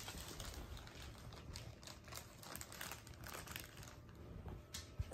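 Soft, irregular clicks and rustling of hands handling things, such as packaging and computer parts.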